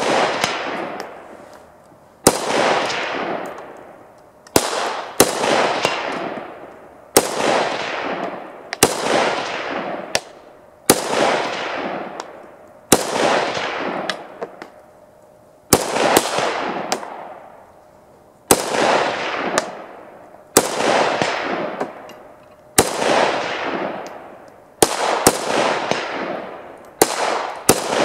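AKM-pattern rifle in 7.62×39mm fired as single shots, about twenty over the stretch, mostly one to two seconds apart with a few quicker pairs. Each sharp report is followed by a long echo that fades over about a second and a half.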